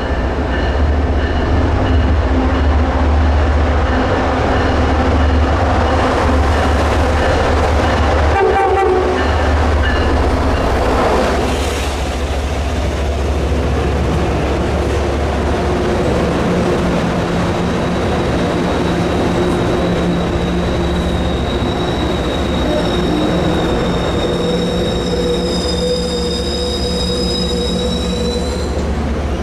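MBTA commuter rail train pulling into the station: a steady deep rumble of the train with wheels running over the rails as the bi-level coaches roll past. A high, thin brake squeal sets in during the last several seconds and rises slightly as the train slows.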